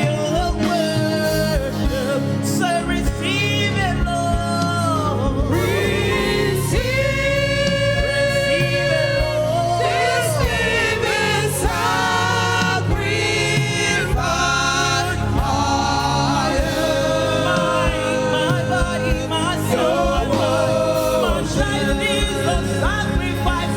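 Gospel worship singing with a band: voices sing long held and sliding notes over steady instrumental backing with a regular beat.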